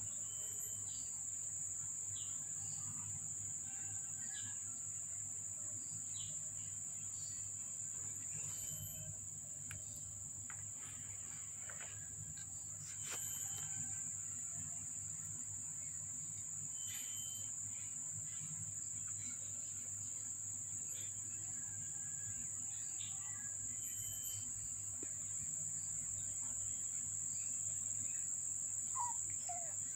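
Insects trilling steadily at a high pitch over a low hum, with scattered light clicks and faint short peeps. Near the end comes a brief kitten mew.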